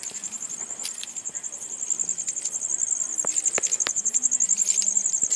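Crickets chirping in a continuous, rapidly pulsing high trill, with a few sharp clicks in the second half.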